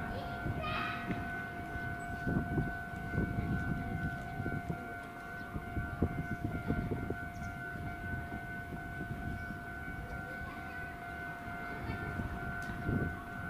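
Electronic railway warning alarm sounding steadily on two pitches held together, over a low rumble of background noise.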